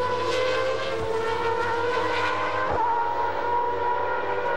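Engine of a 1994 McLaren MP4/9 Formula One car, a Peugeot V10, running at high revs on track. Its note holds a high pitch that drifts slowly, with a brief dip and recovery a little under halfway through.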